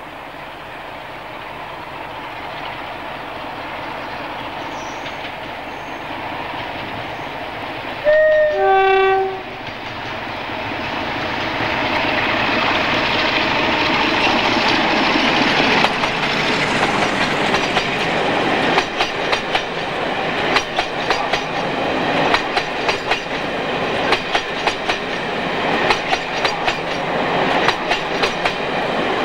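Class 47 diesel locomotive approaching under power, its engine growing louder. About eight seconds in it sounds its two-tone horn, a short high note then a longer low one. As it passes close and the coaches follow, the wheels give a regular clickety-clack over the rail joints.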